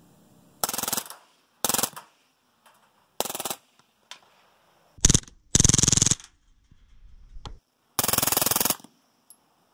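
Suppressed VZ61 Scorpion machine pistol in .32 ACP firing full-auto, about six short bursts of very rapid shots with pauses between them. The longest bursts last around half a second.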